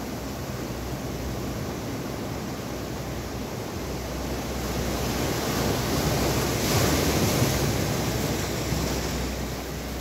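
Sea waves surging and breaking over rocky-shore boulders, a steady wash of surf that swells to its loudest about two-thirds of the way through as a wave breaks, then eases back.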